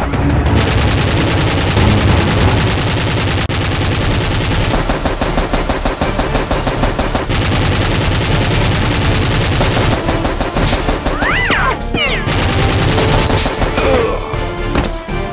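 Rapid automatic gunfire in long, continuous bursts of shots, over background music.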